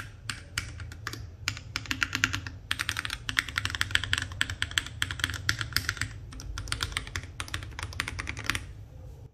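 Rapid typing on an FL680 mechanical keyboard with Tecsee Purple Panda tactile switches and NJ80 keycaps, dense keystrokes that stop shortly before the end. With foam lining the bottom of the case, the key sound is solid and not hollow.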